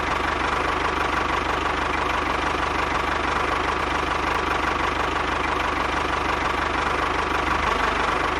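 Small engine idling steadily with a fast, even knocking beat.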